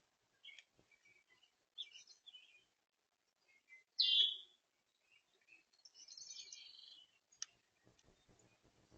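Backyard songbirds chirping and calling: scattered short chirps, one loud down-slurred call about four seconds in, and a quick trill of repeated notes around six seconds, with faint clicking near the end.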